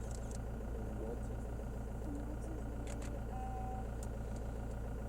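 Vehicle engine idling steadily, with a few brief faint squeaks and scattered light clicks over it.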